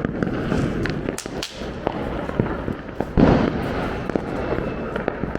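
Diwali firecrackers going off: a continuous dense crackling and popping, with one louder bang a little past halfway.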